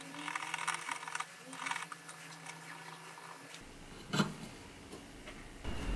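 Abrasive scouring pad scratching across a small flat piece of silver in short strokes, brushing it to a matte finish. The faint scratching stops about two seconds in, and a single soft knock follows a little after four seconds.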